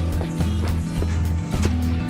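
Background music with a steady bass line and a regular beat.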